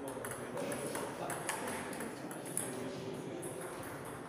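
Table tennis ball clicking sharply off the rackets and the table during a rally, a few hits with short gaps between them.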